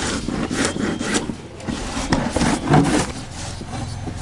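Green papaya being scraped by hand on a grater board into fine shreds: repeated, uneven rasping strokes.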